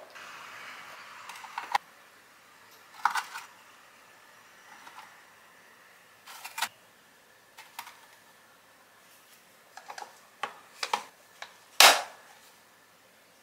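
Plastic clip-lock food storage container being handled: light knocks and clicks as scones are set into it and the lid is pressed on, ending in a loud sharp snap as the lid's latch clips lock shut. A soft rustle and a knock come first.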